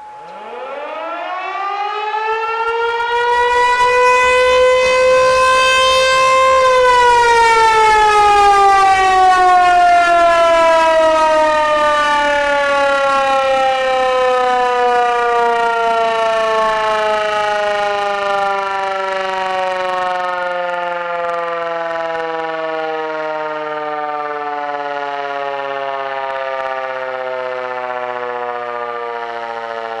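ASC T-128 rotating outdoor warning siren winding up to a loud wail over about six seconds, then winding down slowly, its pitch falling steadily for the rest: a short alert during a scheduled siren test.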